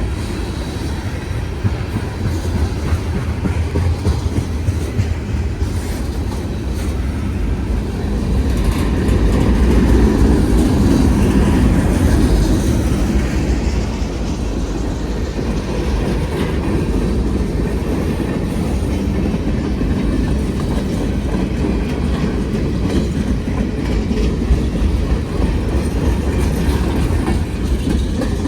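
Freight train cars rolling past at a steady pace: a loud low rumble with the wheels clacking over rail joints, swelling a little about a third of the way in.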